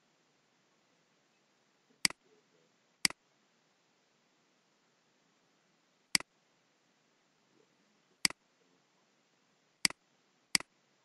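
Computer mouse button clicking: six sharp clicks at uneven intervals over a faint steady hiss.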